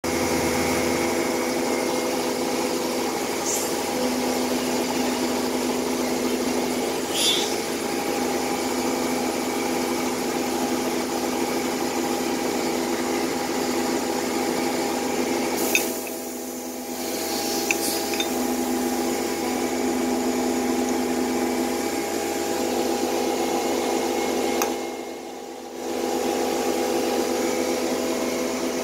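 Steady mechanical hum of machinery running, holding several steady tones, which dips in level twice for about a second, with a few faint light clicks.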